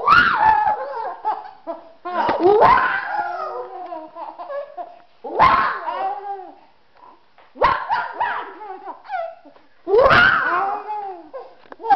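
A baby laughing in about five loud bursts, a couple of seconds apart, with short sharp yelping sounds among them.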